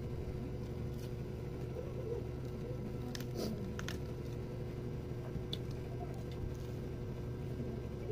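Raw leafy greens being bitten and chewed, with a few crisp crunches about three seconds in and one near the middle, over a steady low hum.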